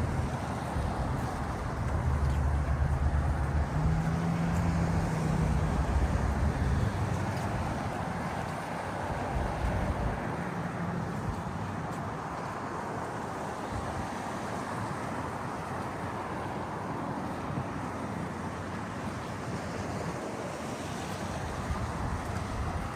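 Steady outdoor city noise, a rushing roar of traffic or wind, with a low vehicle engine hum through the first ten seconds or so that then fades away.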